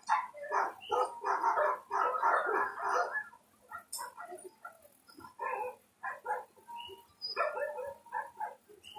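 A team of harnessed sled dogs barking, a thick clamour of overlapping barks for about the first three seconds, then scattered single barks.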